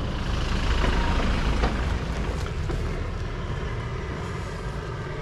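Toyota Hilux pickup driving slowly past on a tarmac lane, engine running and tyres on the road. It is loudest about a second in, then slowly fades as it moves away.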